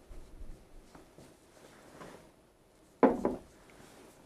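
Playing cards handled quietly as a deck is looked through, with faint small clicks and rustles. A short, louder sound breaks in about three seconds in.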